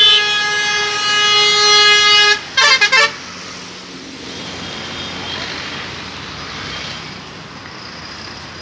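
A truck horn sounds one long steady blast for about two and a half seconds, then three quick toots. After that, trucks' engines and tyres run on as steady traffic noise.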